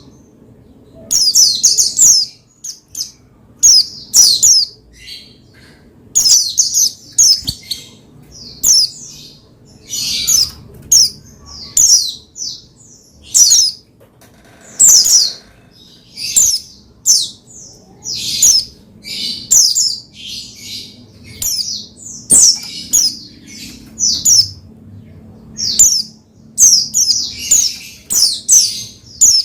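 White-eye (pleci) singing in a rapid, excited twitter: clusters of short, high, sharply falling chirps, one after another with only brief gaps.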